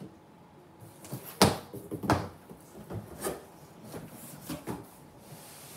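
Cardboard packing pieces being handled and set down on a table, with a cardboard shipping box being handled: several knocks and scrapes, the loudest about a second and a half in.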